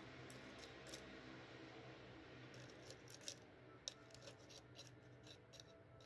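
Faint, irregular metallic clicks and scrapes of a metal rod working inside a furnace crucible among aluminium cans, over a steady low hum. Two sharper clicks stand out a little after the middle.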